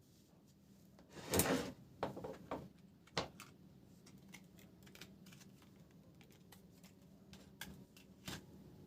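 Hands handling small laptop parts: a short scraping rustle a little over a second in, then a few sharp clicks and lighter taps.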